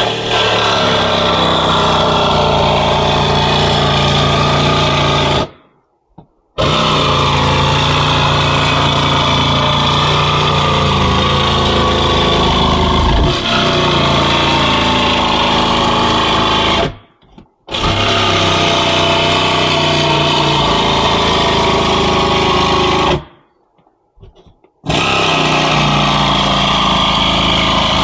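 Electric saw cutting through the motorhome's roof skin and insulation to make the opening for a roof air conditioner, heard from inside the vehicle. It runs in long steady stretches, stopping briefly three times.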